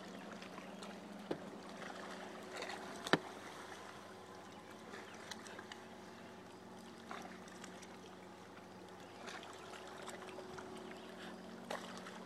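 Boat's outboard motor running at low speed, a faint steady hum under soft water lapping, with a few sharp knocks, the loudest about three seconds in.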